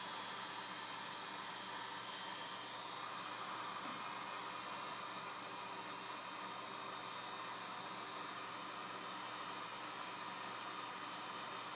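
Heat gun running on low: a steady airy hiss with a faint even whine, blowing hot air to soften the adhesive under a phone's cover glass.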